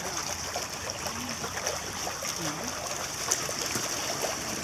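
Pool water lapping and trickling as a black Labrador retriever swims through it, over a steady high hiss.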